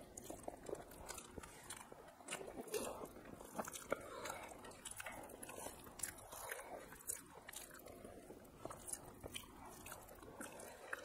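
Two people eating rice and fish curry by hand: quiet chewing with many scattered small clicks.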